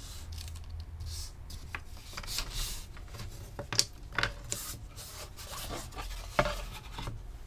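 Hands rubbing and smoothing low-tack painter's masking tape onto book cloth, with a scrap-card guide sliding and scraping over the cover. There are two sharp knocks, about halfway and near the end, as the cover boards and card are handled.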